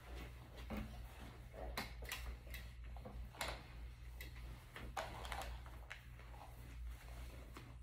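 Bedding being handled: a comforter rustles in short, irregular bursts as it is smoothed and tucked, with scattered light taps and clicks.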